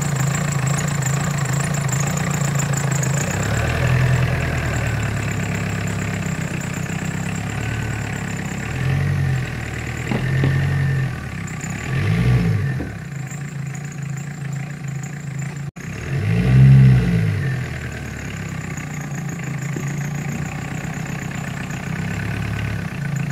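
Tata Indica's engine running at idle, blipped up and back down several times in short revs, the loudest near the end.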